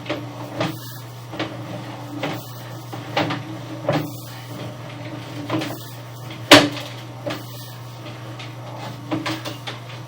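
Irregular knocks and clunks from a sewer inspection camera being pushed along a drain pipe. The sharpest knock comes about six and a half seconds in. A steady low hum runs underneath.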